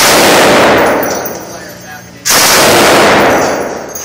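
Machine gun firing two loud bursts of automatic fire, each about a second long, the second starting about two seconds in. After each burst the echo of the indoor range dies away.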